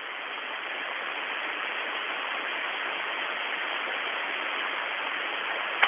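Steady hiss of static on an open radio voice channel, swelling over the first second or so and then holding even, with a click right at the end as a transmission keys in.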